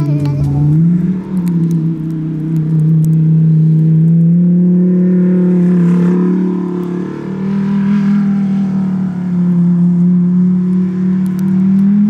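Lamborghini Huracan Performante's naturally aspirated V10 running at fairly steady revs as the car drifts sideways on snow. The pitch steps up a little about a second in, again around four seconds in, near the middle and at the end.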